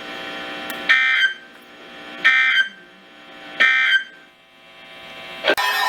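Weather radio SAME digital data tones: three short, harsh warbling bursts about a second and a half apart, the end-of-message code that closes a warning broadcast. Just before the end a loud alarm with wavering, siren-like tones starts abruptly.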